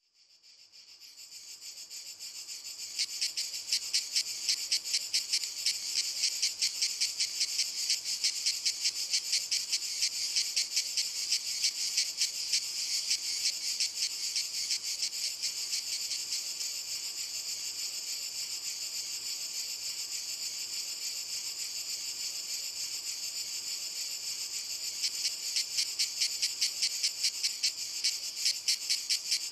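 Cicadas singing in chorus, a dense high buzz pulsing rapidly. It fades in over the first few seconds, and the pulsing grows more marked again near the end.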